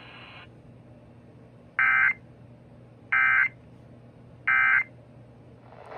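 Emergency Alert System end-of-message signal: three short, buzzy bursts of SAME digital data tones, each about a third of a second, about 1.3 seconds apart, marking the close of a tornado warning broadcast.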